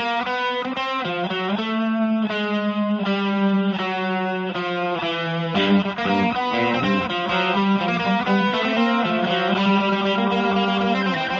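Electric guitar playing slow sustained notes through effects, with rich ringing overtones.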